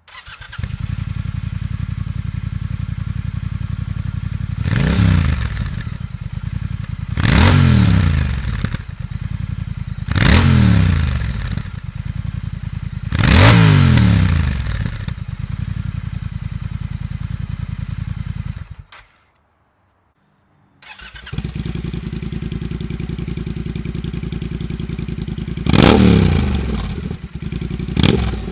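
A 2020 Triumph Speed Twin's 1200 cc parallel-twin engine idles and is blipped four times through its factory silencers. After a brief break it idles again and is revved twice through short British Customs turn-out exhaust tips, in a before-and-after exhaust comparison.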